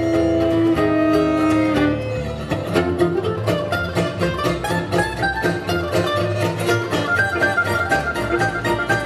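Instrumental music on string instruments: long held melody notes for about the first two seconds, then a steady, rhythmic picked accompaniment with a melody line over it.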